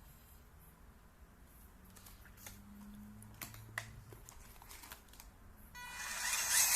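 Faint scattered small clicks of handling, then near the end the RC car's small electric motor starts up with a whine that quickly gets much louder.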